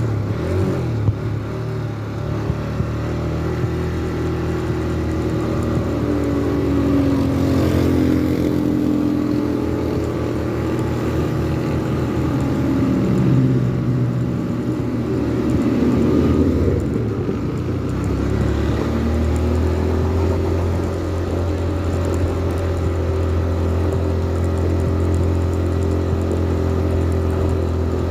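A motor vehicle's engine runs continuously, its pitch rising and falling through the middle and settling to a steady drone for the last several seconds.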